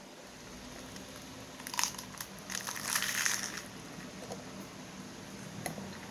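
Close crunching of someone chewing crisp food: a short crackle about two seconds in, then a longer crunchy stretch around three seconds.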